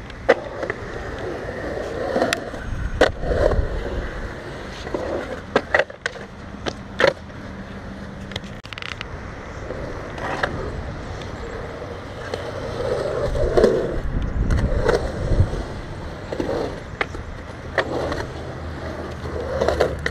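Skateboard wheels rolling on concrete, a steady rumble that swells and fades as the board carves through the bowls. A dozen or so sharp clacks of the board and trucks on the concrete are spread through it.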